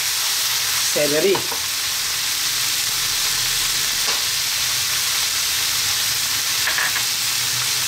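Pork, shredded cabbage and carrot sizzling steadily in hot oil in a pan, stirred with a spatula at first.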